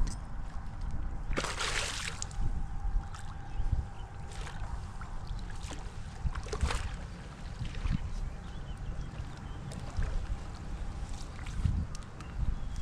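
Water splashing and sloshing around a landing net at the bank as a hooked fish is brought in, with a louder splash about a second and a half in and another near the middle.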